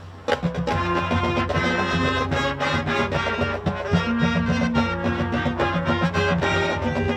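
Marching band playing its field show, brass with percussion. The music drops to a brief lull, then the full band comes back in with a sharp accent a moment after the start and plays on with sustained chords.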